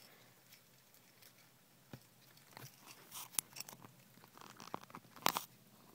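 A hamster eating seeds: faint, irregular crunching clicks of chewing that start about two seconds in, the loudest crunch near the end.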